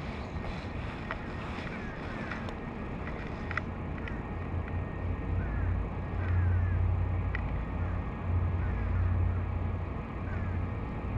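Wind rumbling on the microphone over faint water lapping, the rumble swelling about halfway through. Faint short high chirps repeat several times over it.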